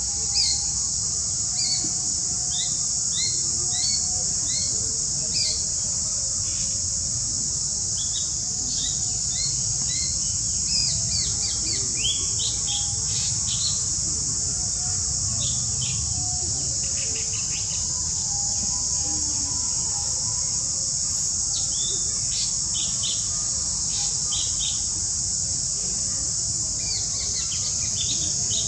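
Steady high-pitched insect drone with birds chirping in short, quickly repeated notes that come in runs, about a dozen in the first five seconds and again in clusters later on; a low rumble runs underneath.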